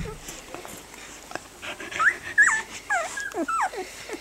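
Week-old rough collie puppies whimpering while nursing. A run of high, downward-gliding squeals begins about two seconds in, after softer whines and small clicks.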